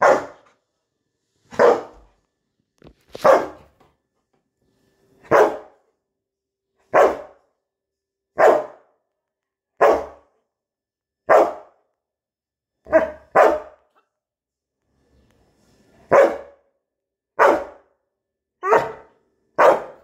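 Labrador retriever barking: single loud barks, about one every second and a half, with a quick double bark a little past halfway, then a pause of about two seconds before the barking resumes.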